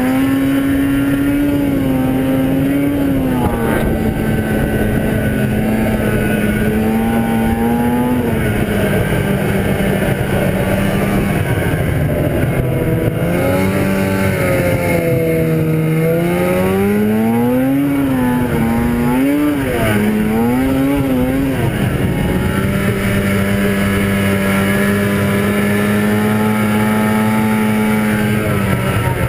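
1997 Arctic Cat ZR 440 snowmobile's two-stroke twin engine under way. It holds a steady pitch for long stretches, sags briefly in the middle, then revs up and down three times in quick succession before settling again and rising near the end.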